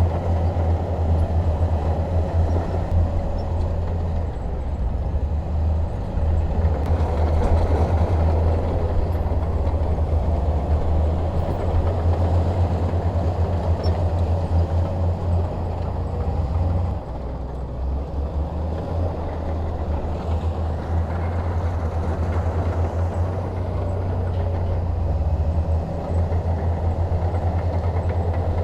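Bulldozer's diesel engine running steadily with a deep hum, a little quieter for several seconds past the middle.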